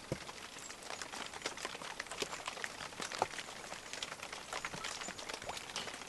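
Rain falling: single drops landing in a dense, irregular patter of small ticks.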